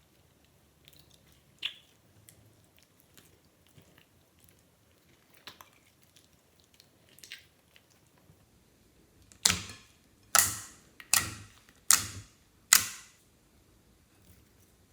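Clear slime being handled: faint scattered clicks, then five loud, sharp pops about a second apart.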